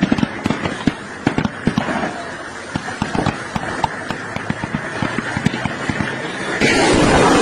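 Rapid, irregular gunfire: many sharp cracks in quick succession. Near the end a sudden, loud, continuous rush of noise sets in.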